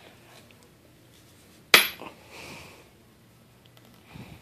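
A single sharp knock a little under two seconds in as a Springfield J. Stevens single-barrel shotgun is turned over on a tile floor, followed by faint rubbing and a few light clicks near the end.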